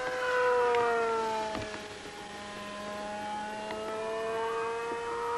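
Electric motor and propeller of a radio-control model flying wing, its special-wound Astro electric motor running in flight with a steady whine. The pitch falls a little after a second in, then rises again in the second half.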